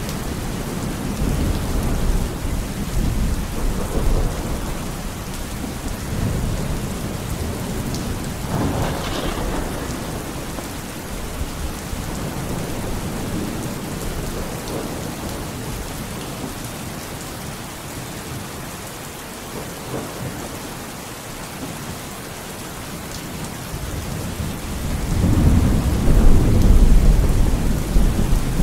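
Steady rain with rolling thunder. A rumble dies away over the first few seconds, and a louder peal of thunder swells up near the end.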